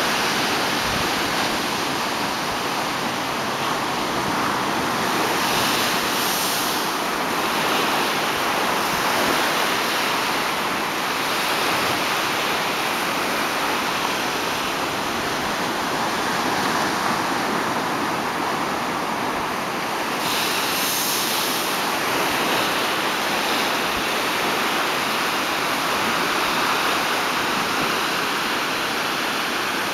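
Low ocean waves breaking and washing up a beach: a steady surf hiss, swelling brighter about six seconds in and again about twenty seconds in.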